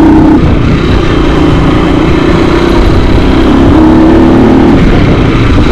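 Trail motorcycle's engine running under way, loud and steady, with wind rushing over the microphone.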